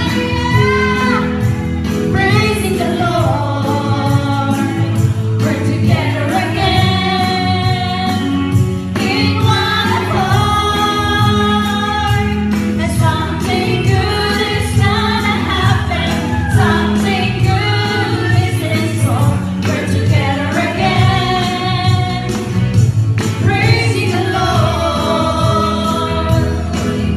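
Women singing a Christian praise and worship song with instrumental accompaniment, the voices holding long sung notes over a steady bass.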